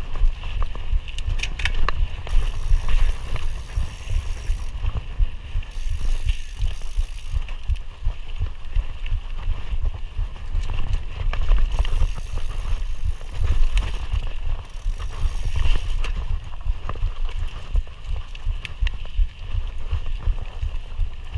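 Mountain bike ridden along a dirt singletrack trail: a continuous low rumble of tyres and wind with frequent rattles and clicks from the bike over bumps. A high buzz comes and goes every few seconds.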